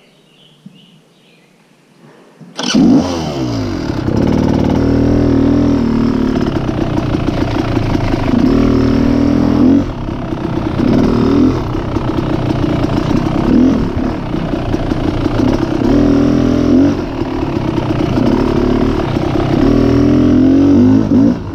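An off-road vehicle's engine starts suddenly about three seconds in. It then runs loud under way, the revs rising and falling over and over as the throttle is worked.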